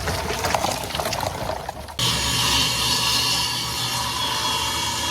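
Cutting into ash wood: about two seconds of rough, crackly rasping, then an abrupt change to a power tool running steadily.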